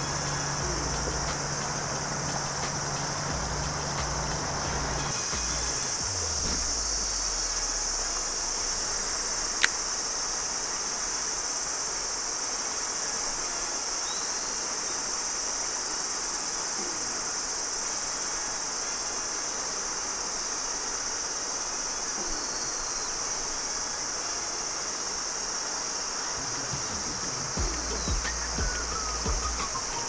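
Steady, high-pitched chorus of insects over the rushing of flowing river water. A low hum at the start fades out about five seconds in and comes back near the end, and there is one sharp click about ten seconds in.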